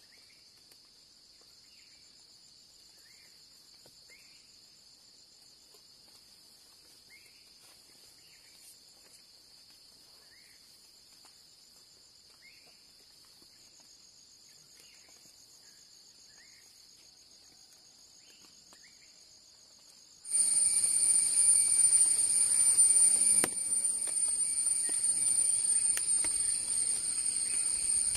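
Crickets and other insects trilling steadily and faintly, with short faint calls every second or two. About two-thirds of the way in it jumps to a much louder insect drone with a high steady whine over a noisy background.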